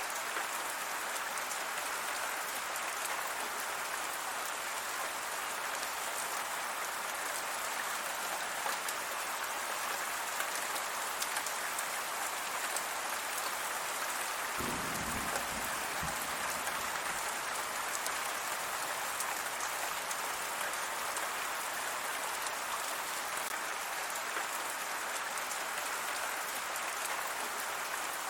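Steady rain falling, an even hiss of drops. About halfway through there is a brief low rumble.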